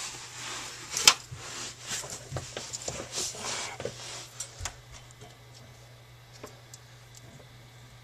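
Handling noises as a black wire cable tray is moved and held up against the underside of a desk: rustling and light clacks, with a sharp click about a second in. After about five seconds it goes quieter, leaving a few faint ticks over a low steady hum.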